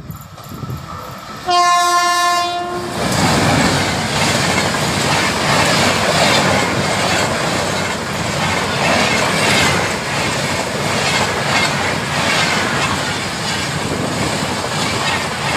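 Indian Railways passenger train sounding one horn blast about one and a half seconds in, just over a second long, then passing close by: a loud steady rush with the clatter of wheels on the rails.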